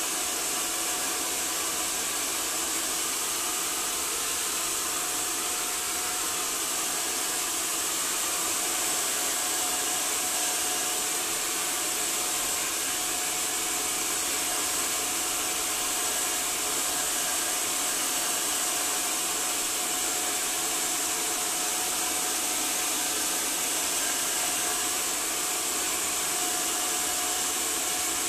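Handheld hair dryer running steadily: a continuous rush of blown air over a steady motor whine.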